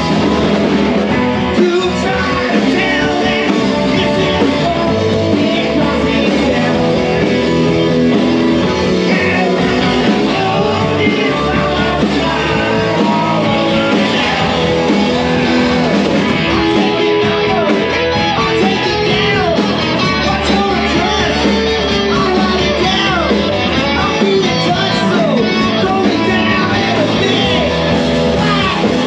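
Live rock band playing loud, with electric guitar and a singer.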